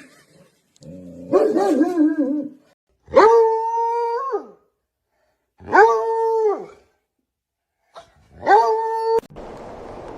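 A dog howling: a wavering howl, then three long howls held at a steady pitch. The last is cut off suddenly near the end by a steady rushing background noise.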